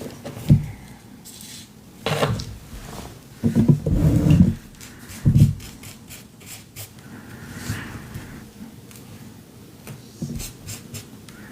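Paper scraps being handled and rubbed down while gluing collage onto a canvas: irregular rustling and rubbing in bursts, with a couple of soft knocks on the work surface and small clicks.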